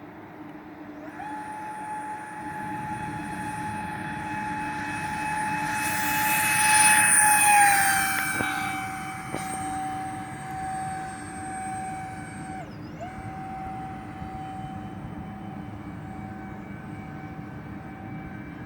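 Electric ducted fans of a radio-controlled Airbus A330 model airliner running with a steady high whine. The whine swells loud and drops slightly in pitch around seven seconds in, then breaks off for a moment about two-thirds of the way through before carrying on.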